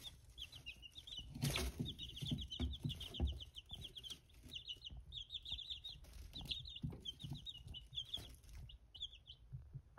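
A brood of young chicks peeping softly: a steady run of quick, high peeps with short pauses, and one brief louder noise about a second and a half in.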